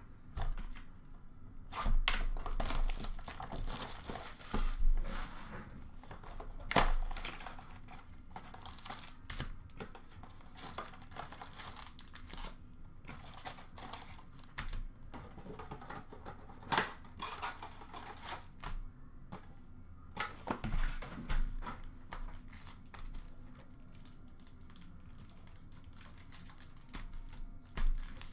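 A hockey card mega box being torn open by hand and its foil pack wrappers ripped and crinkled, in irregular rips and rustles. The biggest tears come in the first several seconds, then smaller scattered crinkles.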